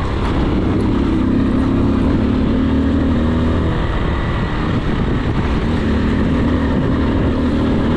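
AKT TTR 200 motorcycle's single-cylinder engine running steadily under way on a dirt trail, its pitch holding even, over a dense rush of noise. The engine note eases a little in the middle and comes back near the end.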